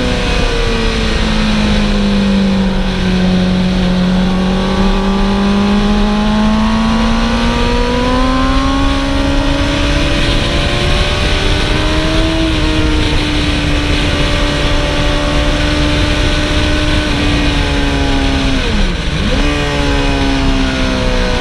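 Sport bike engine running hard at track speed over a steady rush of wind and road noise. The revs sag for the first few seconds, then climb slowly and hold. Near the end they dip sharply and recover.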